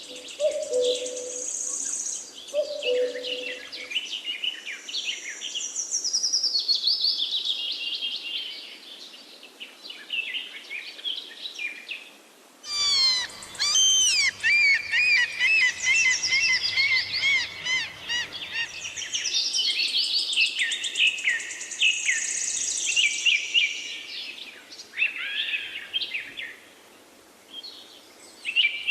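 Dawn chorus of several forest songbirds singing at once: overlapping whistles, trills and chirps, with a short lull about twelve seconds in.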